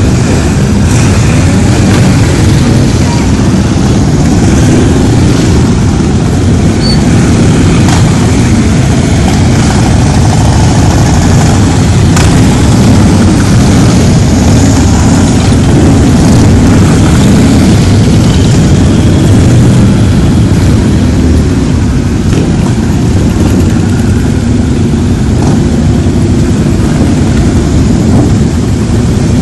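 A steady stream of cruiser and touring motorcycles riding past one after another at low speed, their engines blending into a continuous loud, deep rumble.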